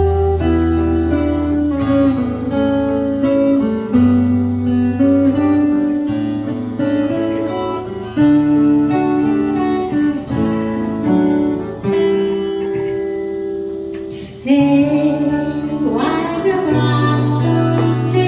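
Live music led by guitar over a steady bass line that changes note every couple of seconds. A melody moves on top, and a gliding pitched line enters about two seconds before the end.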